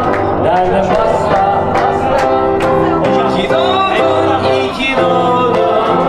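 Live pop music: a man singing into a microphone over instrumental accompaniment with a steady beat, about two and a half beats a second.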